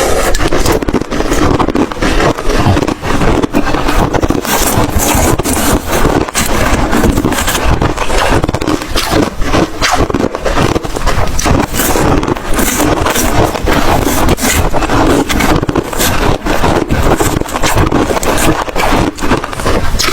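White ice being chewed and crunched close to the microphone: a dense, unbroken run of sharp, irregular crunches.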